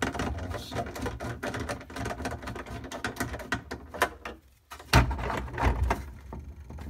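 Hand screwdriver backing out a screw from a metal crisper-drawer guide rail inside a refrigerator: a run of quick small clicks and scrapes. About five seconds in there is a thump, followed by low knocking as the rail is handled.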